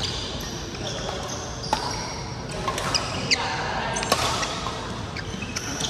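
Badminton rackets striking shuttlecocks: several sharp hits a second or more apart, with short squeaks of court shoes on the floor in between, echoing in a large sports hall.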